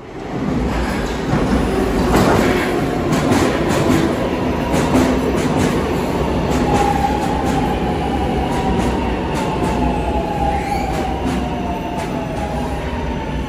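Milan Metro Line 1 train arriving at an underground platform: a loud rush of steel wheels with rapid clicks over the rails. Over the second half a whine slowly falls in pitch as the train brakes.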